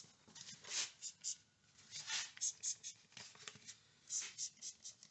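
Trigger spray bottle squirting soapy water into freshly honed engine cylinder bores: repeated short hissing squirts, often three or four in quick succession.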